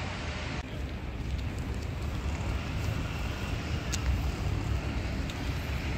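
Outdoor city ambience: a steady low rumble with a few faint ticks.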